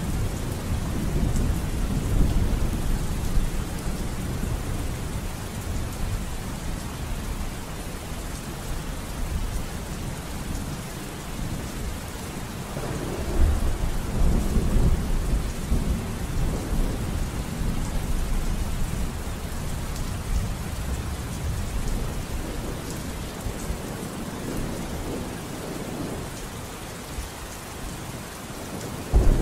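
Steady rain with low rolling thunder, rumbling at the start and swelling again about halfway through.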